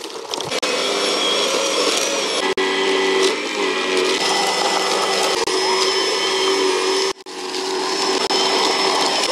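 Wild Badger cordless battery snow blower running under load, its electric motor and auger giving a steady whine as it throws snow. The sound breaks off briefly a few times, most clearly about seven seconds in.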